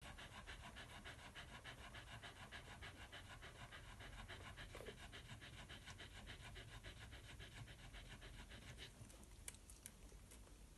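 Nursing Miniature Australian Shepherd dam panting in a rapid, even rhythm; the panting stops abruptly about nine seconds in, followed by a few faint clicks.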